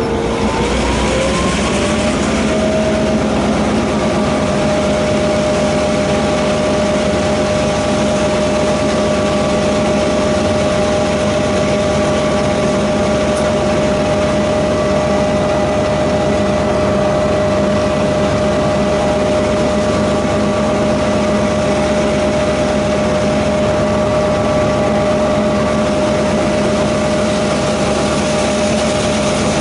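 DQ class diesel locomotive running under load with a loaded ore train. Its steady drone rises in pitch over the first few seconds, then holds level.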